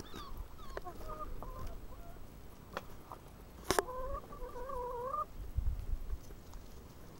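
Hen clucking: a few short clucks, then one longer wavering call about four seconds in. A couple of sharp clicks are heard in between.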